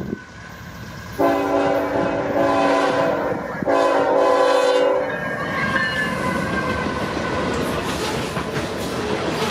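Norfolk Southern diesel freight locomotive sounding its multi-note air horn in two blasts: a long one starting about a second in, then a shorter one right after. The horn gives way to the rumble and wheel clatter of the freight cars rolling past close by.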